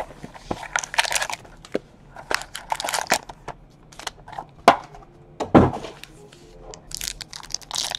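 Cardboard hobby box of 2017 Panini XR football cards being opened and handled: cardboard scraping and tapping and the crinkle of shiny card packs. A sharp knock comes about halfway through and a heavier thud a second later.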